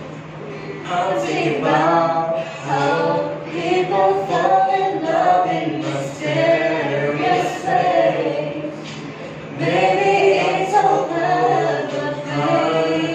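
A young woman and a young man singing together a cappella, with no instruments. The singing starts about a second in and goes on in held phrases, with a short pause about two-thirds of the way through.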